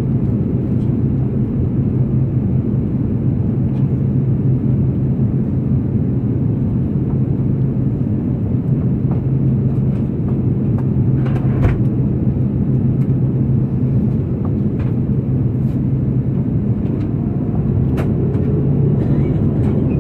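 Steady cabin noise of an Airbus A330-200 in descent: the even drone of airflow and the GE CF6-80E1 engines, with a constant low hum. A few faint clicks about eleven seconds in and near eighteen seconds in.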